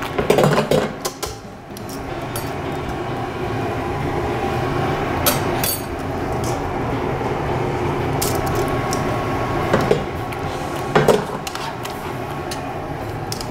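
Metal tongs clicking against a frying pan as food is tossed and mixed in it: a handful of separate clinks over a steady background noise.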